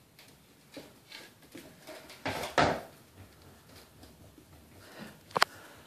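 Wobble board knocking and rocking on a tile floor under playing puppies: a few light taps, then a short scraping clatter about two seconds in, and a single sharp click near the end.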